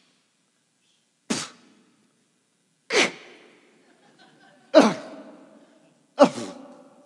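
A man's scornful, exasperated huffs and sighs: four sudden puffs of breath about every second and a half, each fading quickly, the last two with a little voice in them.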